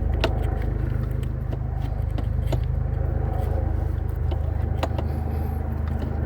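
Scattered light metallic clicks and taps of hand tools and parts being worked in a car's engine bay, over a steady low hum.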